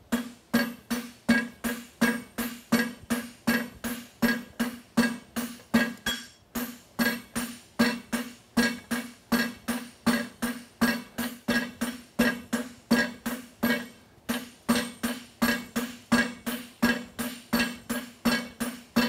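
Sledgehammer and hand hammer striking red-hot steel on an anvil in a steady rhythm, a little over two blows a second, each blow ringing the anvil: the reins of a pair of tongs being drawn out.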